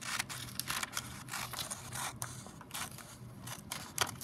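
Glossy magazine page being trimmed with scissors and handled: a series of short, crisp, irregular snips and paper rustles.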